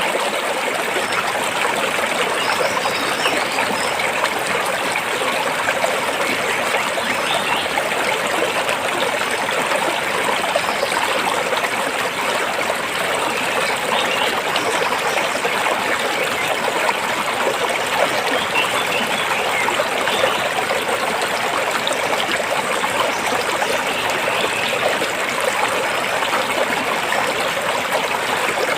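Stream water flowing steadily over and between rocks.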